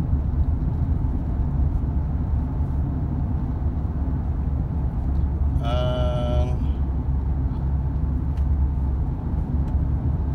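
Steady low road and engine rumble inside a car's cabin while cruising at about 44 mph. About six seconds in, a short pitched sound rises briefly over it.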